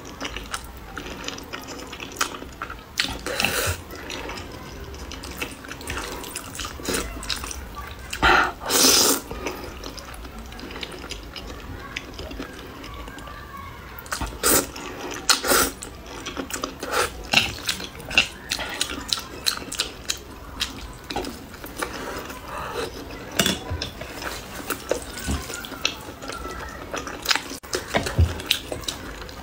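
A person slurping and chewing thick sauced noodles: repeated wet slurps, the longest lasting about a second around eight seconds in, among smacking and chewing clicks.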